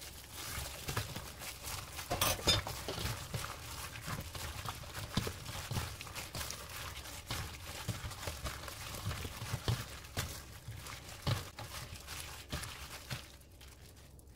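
Cubed radish being hand-mixed with chili powder and seasoning paste in a stainless steel bowl by a plastic-gloved hand: irregular rustling and squishing with soft knocks of the cubes against the bowl, a little louder about two seconds in and quieter near the end.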